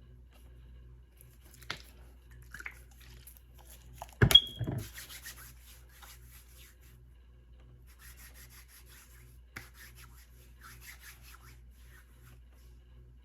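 Cards being handled and shuffled: bursts of short rubbing, rustling strokes, with a few clicks and one sharp knock about four seconds in.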